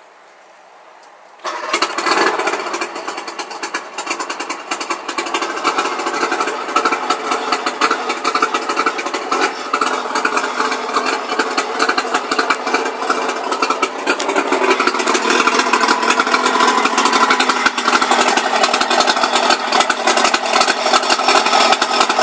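2007 Mercury 90 hp outboard motor cold-started with the key, catching almost at once about a second and a half in, then running at idle with a rapid, even beat that grows slightly louder.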